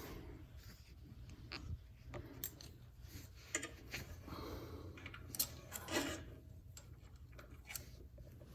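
Faint scattered clicks and light metallic clinks of small hand tools being handled, with no drill running.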